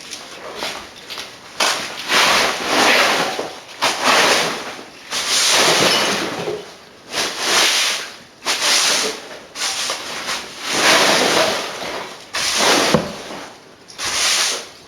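A big brush sweeping the floor: about ten long swishing strokes in a row, each a second or so, with short gaps between.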